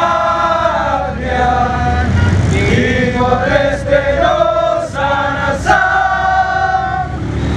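A group of male protesters chanting a slogan together in loud, raised voices, the syllables drawn out into long held notes. Road traffic runs underneath.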